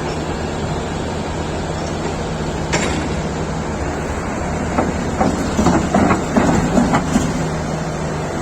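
SANY SY500H 50-ton crawler excavator's diesel engine running steadily, with a single metallic knock about three seconds in and a run of clanks and knocks between about five and seven seconds in.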